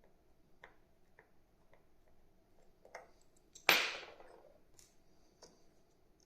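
Small ticks and clicks of a screwdriver working the tiny case-back screws of a Casio G-Shock watch, with one louder, sudden clatter a little over halfway through that fades within about a second.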